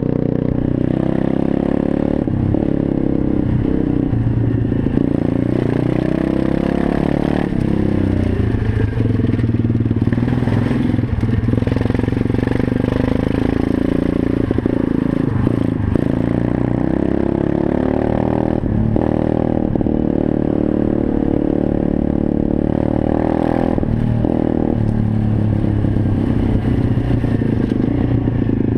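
125cc single-cylinder four-stroke pit bike engine under way on the road, the revs rising and falling again and again as the rider accelerates and eases off.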